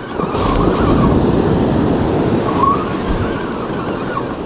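Ocean surf breaking and washing up a sandy beach, swelling about half a second in and slowly easing off, with wind on the microphone.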